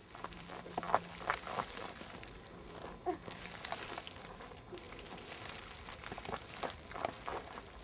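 Irregular light rustling and crunching of footsteps through roadside grass and gravel, with the crinkle of snack wrappers being picked up off the ground.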